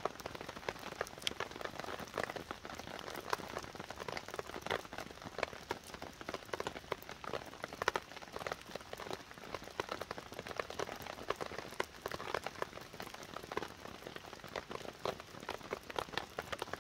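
Heavy rain falling on a tarp shelter: a dense, continuous run of separate drop strikes.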